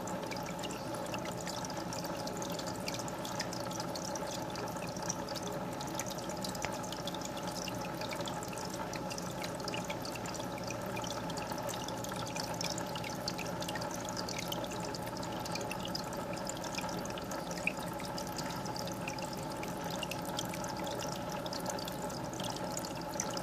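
Aquarium filter running: water steadily trickling and splashing into the tank, with a steady hum under it and many tiny droplet ticks.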